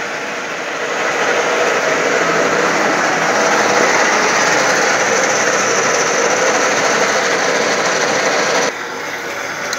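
Steady machining noise from a milling machine whose end mill is slowly cutting a slot in a thick steel bushing, with a lathe running alongside. The noise drops suddenly near the end.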